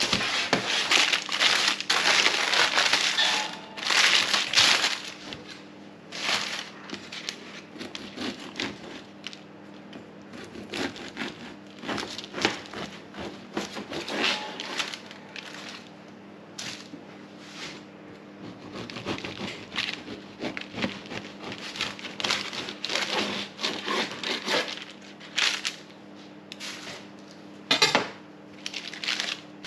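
Baking paper crinkling and a knife sawing again and again through a slab of baked stollen, its crisp topping crackling and crunching under the blade. A steady low hum runs underneath.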